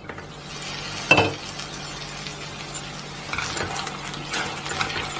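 Taro (arbi) strips sizzling in oil in a nonstick kadhai as its glass lid is lifted off, with a knock about a second in. From about three seconds in, a spatula stirs through the pieces with light scraping clicks against the pan.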